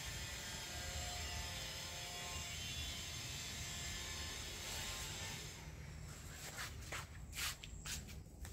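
A steady background of sustained tones that stops about five and a half seconds in, then the footsteps of flip-flops slapping on a tiled floor, about two steps a second.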